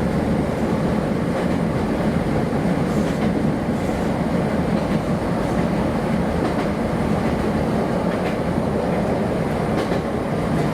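Kobe Electric Railway train running: a steady rumble of wheels on rail, with a few faint clicks.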